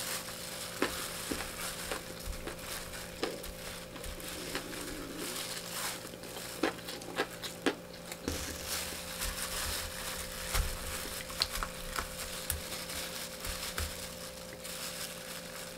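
Close-miked chewing of crispy fried chicken and rice, with many small irregular crunches and crackles, and the crinkle of a clear plastic food glove as the hand works the plate.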